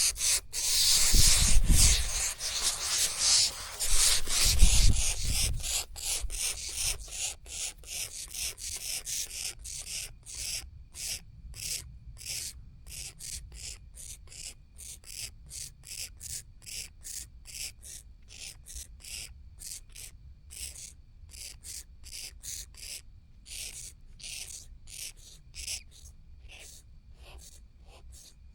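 Grass owl chicks giving rasping, hissing begging calls, short rasps repeated about twice a second. The calls are loudest and densest in the first few seconds, with a low rumbling underneath, and grow fainter later.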